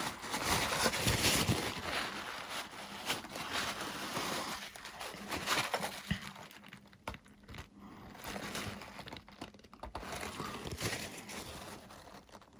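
Hands working on the EPP foam airframe parts: scattered light crinkles, rubs and small taps, busiest in the first couple of seconds and thinning out after.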